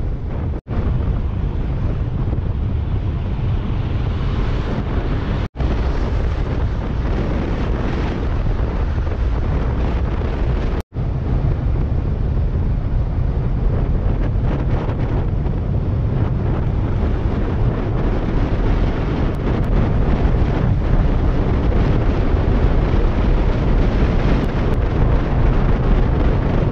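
Wind rushing over the microphone of a moving motorcycle's rider camera, a steady rough noise heavy in the low end, with the bike running underneath. The sound cuts out for an instant three times: about half a second, five and a half seconds and eleven seconds in.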